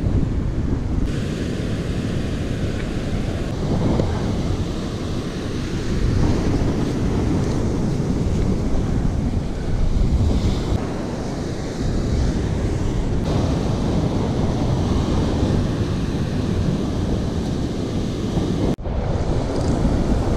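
Ocean surf breaking and washing up the beach, with strong wind buffeting the microphone.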